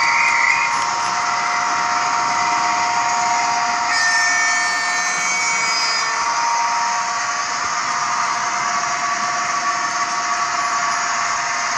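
Model train running on the layout: a steady mechanical whine of a small electric locomotive motor over the running noise of wheels on the track.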